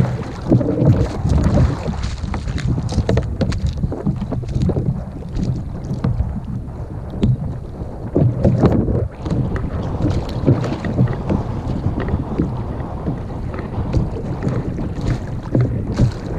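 Wind rumbling on the microphone over water lapping against a kayak hull, with scattered light knocks and clicks and a few brief louder splashy patches.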